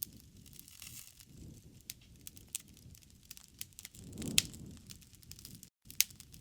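Wood fire crackling in a fireplace: scattered sharp pops and snaps over a soft low rumble of flames, with one louder pop about four seconds in.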